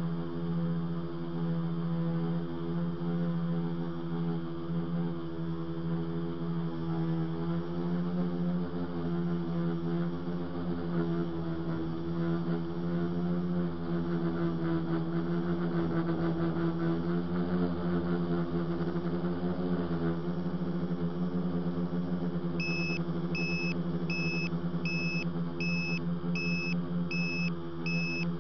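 Multirotor drone motors whining steadily, the pitch wavering as the tricopter lifts off and climbs. From about three quarters of the way in, a high electronic beep repeats about one and a half times a second.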